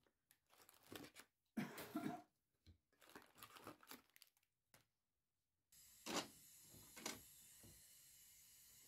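Foil instant-coffee sachets crinkling faintly as they are set down one at a time on a tablecloth. About two-thirds of the way through, a steady hiss starts abruptly, with two sharp knocks about a second apart.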